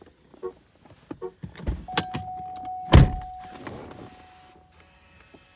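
Handling noises inside a 2005 Cadillac STS. A few light clicks come first, then a steady tone starts about two seconds in and fades out. The loudest sound is a heavy thump about three seconds in.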